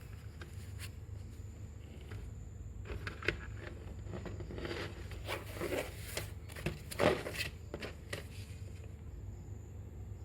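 A CD and its packaging being handled: rustling and scraping with a few sharp clicks, starting about three seconds in and stopping near the end, over a steady low hum.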